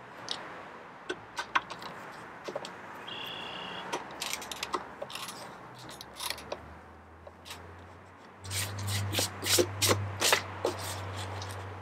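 A hand-held countersinking tool scraping into the plastic screw inserts of a motorcycle top-case mounting plate: short scattered scrapes, then a run of louder rasping strokes near the end.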